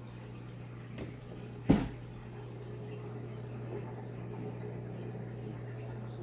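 Steady low electrical hum of saltwater aquarium equipment, with one sharp knock a little under two seconds in.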